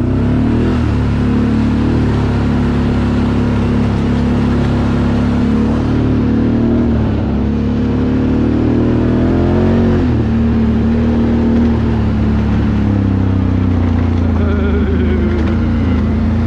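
Can-Am Outlander 1000R ATV's V-twin engine running under way. Its pitch climbs steadily from about six seconds in, then drops sharply at about ten seconds.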